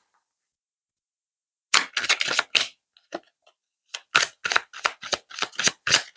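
Tarot deck being shuffled by hand: two runs of crisp card snaps, about four a second, starting a little under two seconds in and again about four seconds in.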